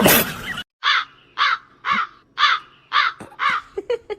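A series of six harsh, rasping animal calls, about two a second, following a short loud rush of noise at the start.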